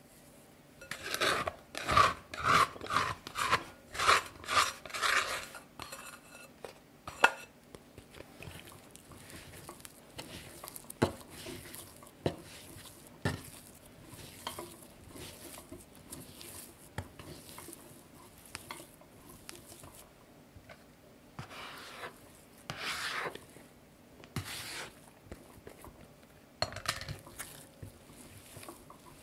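Shaggy, sticky milk-bread dough being worked by hand on a bamboo cutting board. A quick run of about nine even strokes in the first few seconds, then quieter squishing and rubbing with occasional light knocks on the board.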